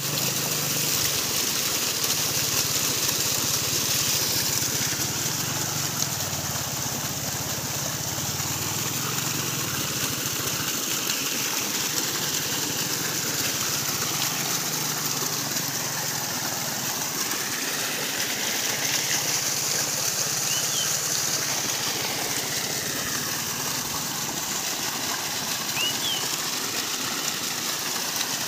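Water gushing steadily out of a borewell casing at ground level and splashing over the grass. The bore is overflowing from risen groundwater.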